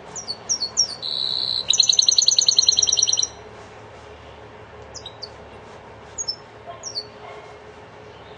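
Linnet × canary hybrid (mule) singing goldfinch-style song: a few quick falling chirps, a short steady high note, then a rapid trill of about ten notes a second lasting about a second and a half, followed by a few scattered single chirps.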